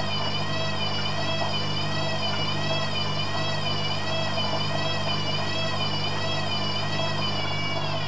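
Hoover Dynamic Next washing machine spinning its drum on a 400 rpm delicates spin: a steady motor hum under a high whine that wavers up and down in pitch about once a second.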